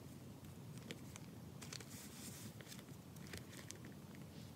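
Faint handling sounds of a leather traveler's notebook being opened: scattered small clicks and taps, with a soft rustle of leather and paper about two seconds in.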